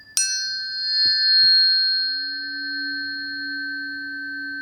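Planetary tuning forks ringing. One is struck just after the start and rings with a clear, steady tone beside a slightly higher fork already sounding. A low steady hum swells in about a second later.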